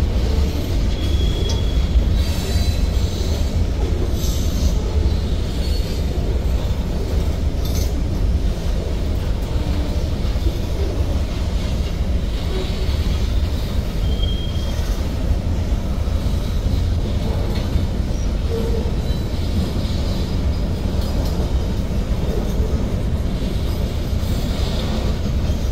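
Freight train boxcars rolling past at a steady pace, with a continuous low rumble of steel wheels on the rails. Brief high-pitched wheel squeals come a couple of times.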